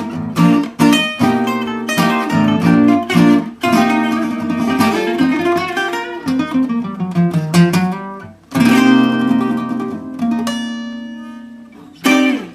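Acoustic guitar music, strummed and picked chords. About eight and a half seconds in a loud chord rings out and slowly fades, and one last short strum follows near the end.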